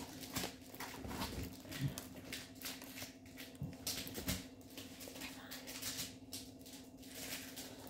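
Faint scattered clicks and rustles of things being handled while someone reaches down beside a couch, over a steady low hum.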